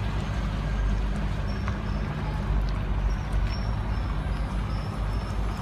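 Chevrolet Corvette V8 engines running at low speed as the cars drive slowly past one after another, a steady low engine and exhaust sound.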